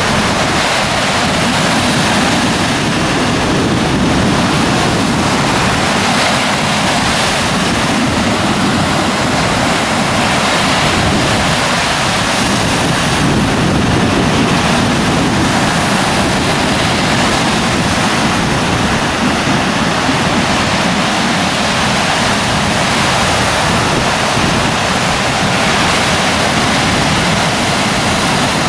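Surf breaking on a beach: a steady, loud wash of waves with no let-up.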